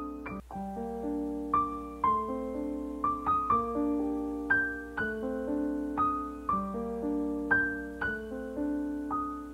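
Background piano music: notes struck about twice a second, each ringing and fading, over held lower notes, with a very brief break about half a second in.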